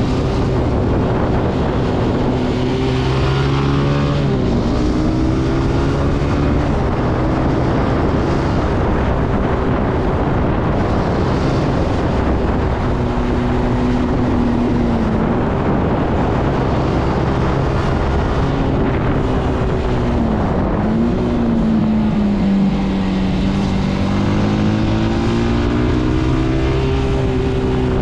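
Zontes C125 motorcycle's 125 cc engine running under way. The engine pitch rises and falls several times as the revs change, with a sharp drop about four seconds in, over wind and road noise.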